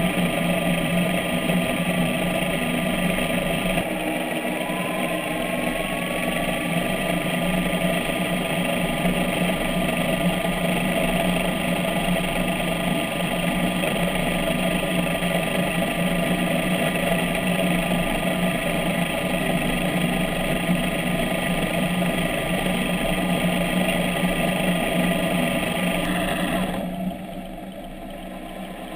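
Steady mechanical hum of a REMUS 100 autonomous underwater vehicle's propulsion motor and propeller running, picked up underwater by its hull-mounted camera. One faint tone rises slightly a few seconds in, and the whole hum drops noticeably in level near the end.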